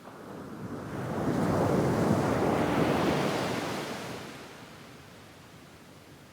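A medium wave breaking and washing up on a sand beach: the surf swells about a second in, peaks for a couple of seconds as a hissing wash, then fades back to a low background about five seconds in.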